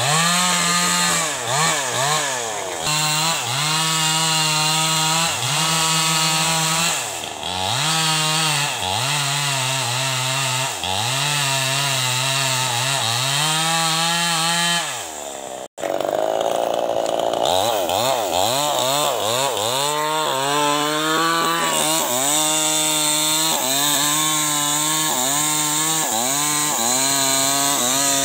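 New West 588 two-stroke chainsaw running at high revs and bucking a teak log, its pitch dipping and recovering every second or so as the chain bites. The sound cuts out for an instant about halfway through, then the saw carries on at steadier revs.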